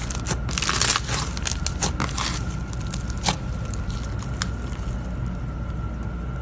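Dry material crunching and crackling as it is crushed: dense crackles for the first two seconds or so, thinning to a few sharp cracks over a steady hum.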